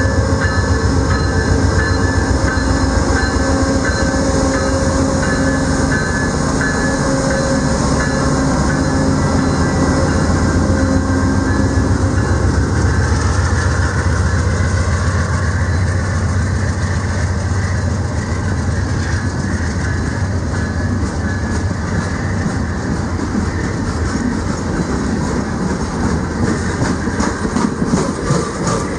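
VIA Rail GE P42DC diesel locomotive passing close at speed, its engine tone fading as it moves off. It is followed by a long train of stainless-steel passenger cars rolling by with steady wheel-on-rail noise. Rhythmic clickety-clack of wheels over rail joints comes in near the end.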